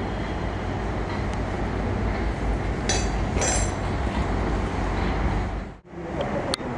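Steady low rumble of workshop background noise, with two short metallic clinks of metal parts about three seconds in; the sound drops out briefly near the end.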